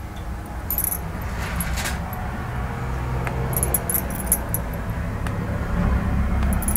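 Glass bangles clinking in short jingles several times as the wrists move while a knife cuts a steamed finger-millet dhokla, over a steady low rumble.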